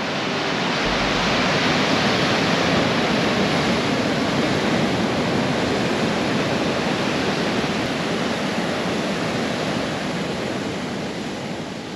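Heavy ocean surf breaking and churning white against a rocky shore: a steady loud rush of water that eases off slightly near the end.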